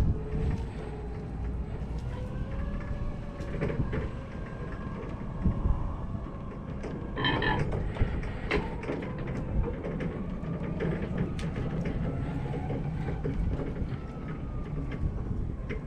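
Yale 4,000 lb electric reach truck driving: its electric drive motor whines, the pitch rising and falling as the truck speeds up and slows, over a low rumble with scattered clicks and rattles. A brief, sharper sound stands out about seven seconds in.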